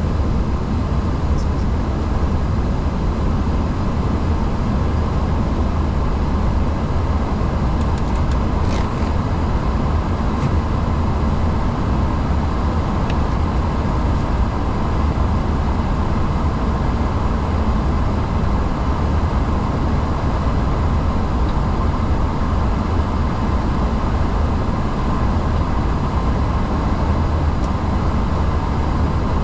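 Steady rumble and rush of air on the flight deck of an Airbus A340-600 during take-off, with a few faint clicks about eight to thirteen seconds in.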